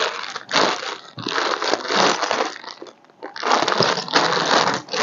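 Hands rummaging through a box of buttons: several bursts of rustling, with short breaks about one and three seconds in.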